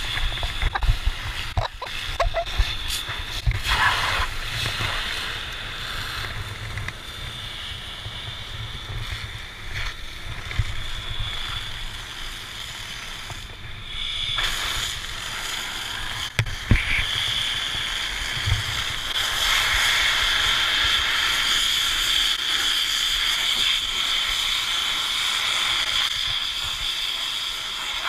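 Fire hose spraying water onto a burnt-out car's hot body: a steady hissing rush of water, louder in the second half. Knocks and bumps in the first few seconds.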